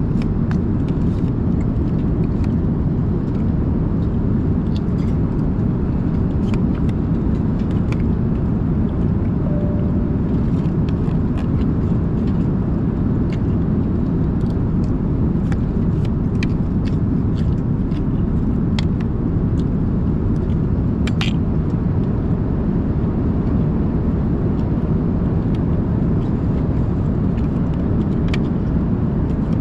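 Steady drone of an airliner cabin in flight, engine and airflow noise, with scattered light clicks and scrapes of a metal spoon against a plastic meal tray.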